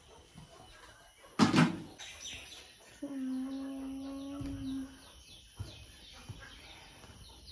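A bird chirping over and over, short high calls about three a second. A loud knock about a second and a half in, and a steady hum lasting nearly two seconds near the middle.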